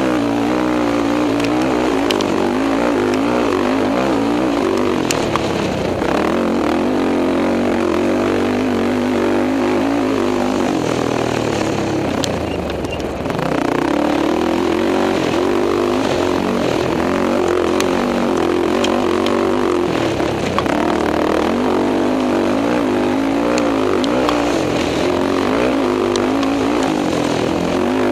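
A race quad's engine running hard under throttle in a desert race, with its pitch wavering up and down. It drops off briefly about halfway through, then picks up again. Occasional sharp ticks are heard over the engine.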